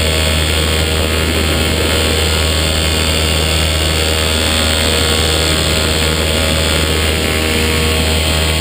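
A Blackhawk paramotor's 120cc two-stroke engine and propeller running at a steady speed in flight, a constant low drone with an even hiss over it.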